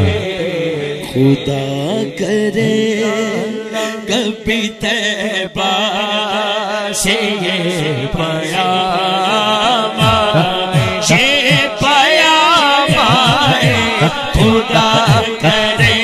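A man's voice singing a long, drawn-out, ornamented melodic line of a naat into a microphone, with a low rhythmic beat underneath from about halfway through.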